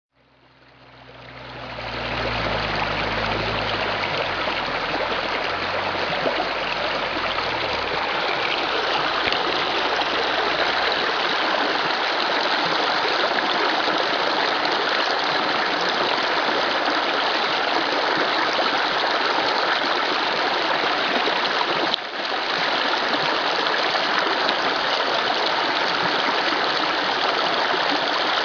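Small creek flowing steadily, a continuous rushing of water that fades in over the first two seconds. A low rumble sits under it for the first several seconds.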